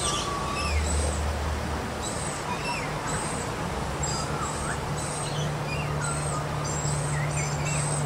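Birds chirping and calling: many short high chirps and a few brief falling and rising whistles, over a steady low hum.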